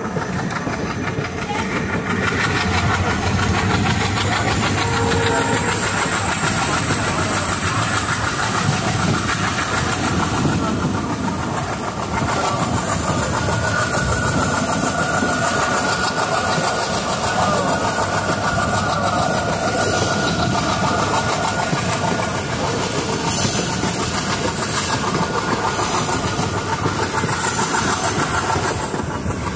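Passenger express train running, heard from on board: steady rumble and clatter of the coaches' wheels over the rails, with a thin, steady high whine above it.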